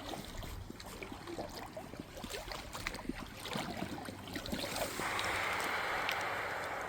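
Faint clicks and rustles, then about five seconds in a steady splashing rush of running water starts suddenly and carries on.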